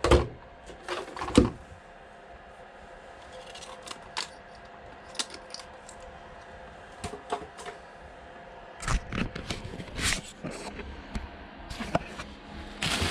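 Hard plastic parts of an RC truck being handled: scattered clicks, taps and light knocks, with two louder knocks at the start and a busier stretch of knocking near the end.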